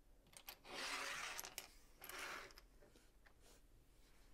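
Loose plastic LEGO pieces clattering and clicking as a hand picks through them, in two short bursts about a second apart, followed by a few lone clicks.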